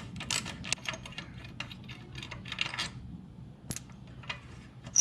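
Hand tools clicking and clinking on metal while undoing the bolts of a motorcycle's exhaust: a dense run of short clicks for about three seconds, then a few single clicks.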